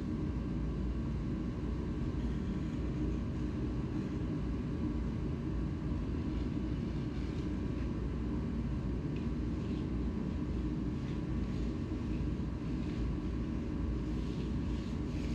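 Steady low machine rumble, with faint scrapes of a hand trowel working wet concrete, more of them near the end.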